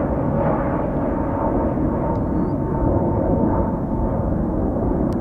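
Jet airliner's engines running loud and close, a steady rumble with a faint high whine.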